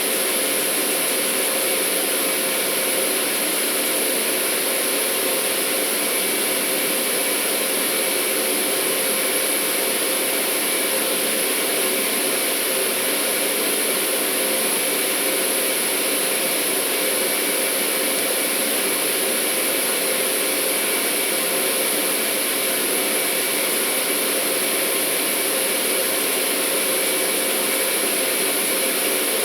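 Steady industrial machinery noise: a constant hiss with a few steady hum tones, unchanging throughout.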